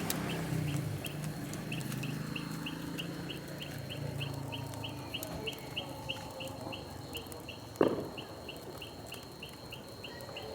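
Even, rapid chirping, about four short chirps a second, over a thin steady high tone, with a few faint clicks and one loud pop about eight seconds in.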